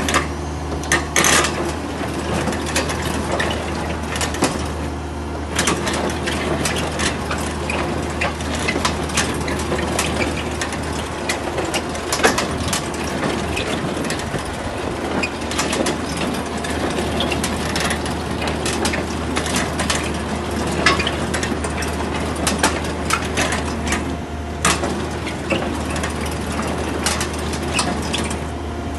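Tescar CF2.5 hydraulic mini piling rig drilling into concrete: its engine runs with a steady low hum under continuous grinding, with many sharp clicks and knocks as the drilling tool works the concrete.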